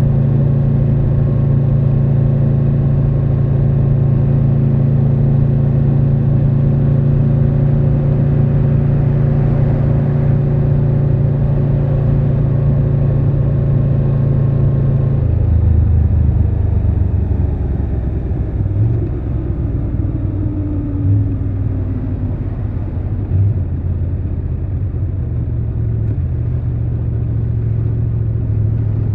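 Triumph Tiger 1200 Rally Pro motorcycle's inline three-cylinder engine running at a steady pitch under way. About halfway through, the revs drop suddenly and it settles into a lower, uneven note, with a few brief swells as the throttle is blipped.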